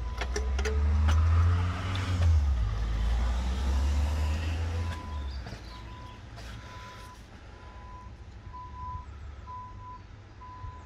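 A deep vehicle rumble for the first five seconds or so, then a reversing alarm beeping a little more often than once a second. A few sharp metallic clicks at the very start.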